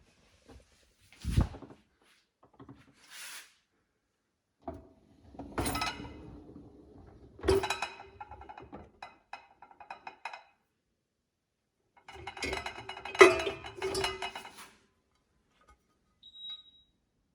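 Dishes clattering and clinking as they are handled, in separate bursts with short ringing tones, the busiest run a couple of seconds long toward the end. A short high beep sounds near the end.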